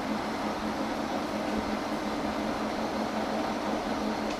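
Monarch 16CY engine lathe running under power, a steady hum with an even low drone from the geared headstock and spinning chuck, while the carriage feeds along the leadscrew.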